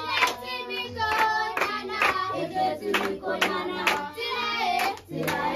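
A group of children singing together, clapping their hands along with the song.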